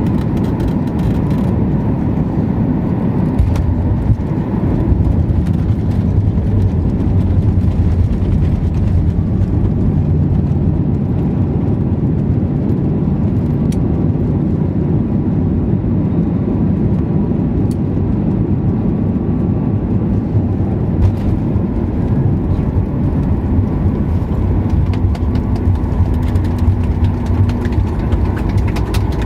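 Steady low rumble inside the cabin of a Boeing 737-8 MAX airliner on the ground after landing, from its engines and airframe.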